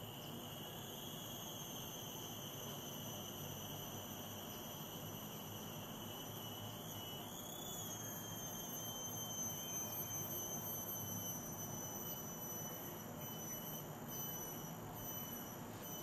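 Insects calling in a steady, high-pitched drone, wavering briefly about seven seconds in.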